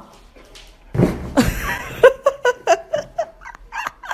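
A dog vocalising in a quick run of short, high whines and yips, starting about a second in.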